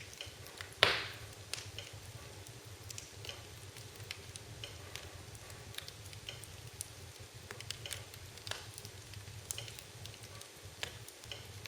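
Wood fire crackling, with scattered small snaps and one loud pop about a second in.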